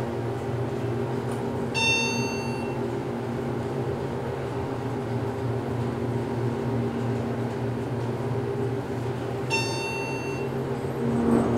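Montgomery hydraulic elevator travelling up, with a steady hum from the hydraulic pump unit. Two electronic beeps about a second long, each sounding once, about two seconds in and again near the end, as the car passes floors.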